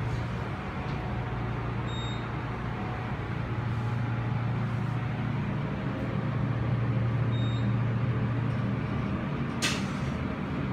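Elevator car riding up, with a steady low hum from the car and its drive. Two faint short high beeps sound along the way, and there is a sharp click near the end.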